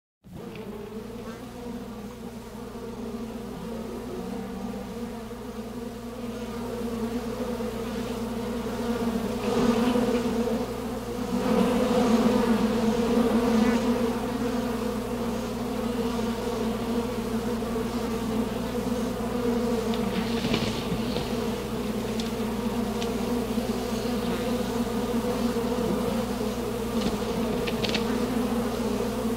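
A steady buzzing drone with a low, even pitch, swelling in loudness over the first dozen seconds and then holding, with a few brief faint crackles later on.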